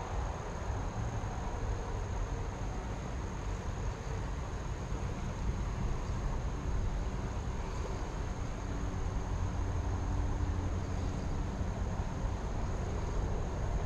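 Insects, likely crickets, trilling in one steady high tone over a steady low rumbling background noise.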